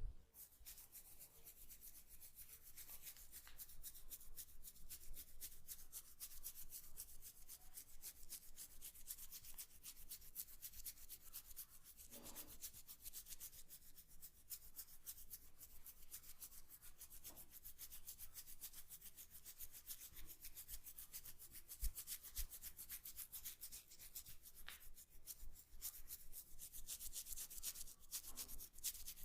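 Hands rubbing quickly and firmly over hair and scalp during a head massage, a fast, even run of scratchy strokes, with one sharper knock about 22 seconds in.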